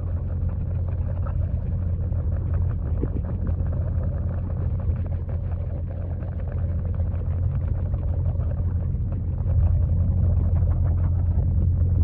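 Pond waterfall heard underwater through a GoPro's waterproof housing: a steady, muffled low rumble with a faint crackle over it. It grows a little louder about ten seconds in.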